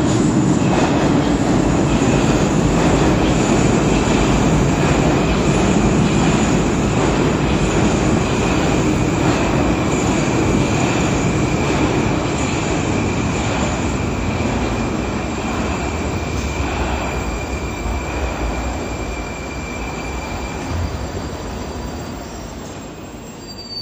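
Moscow metro "Moskva" (81-765) train pulling into a station: the loud rumble of wheels and running gear fades as it slows to a stop. A low whine falls in pitch over the first few seconds, and a steady high whine runs on until it stops about 21 seconds in.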